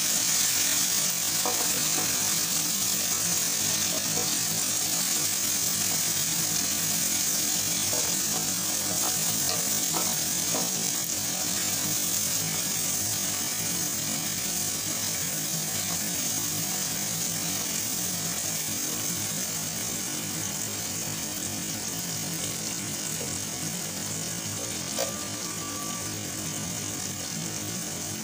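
Chopped tomatoes and onions sizzling steadily in hot oil in a non-stick pan, the hiss easing off slightly over time, with a spatula now and then scraping and tapping against the pan.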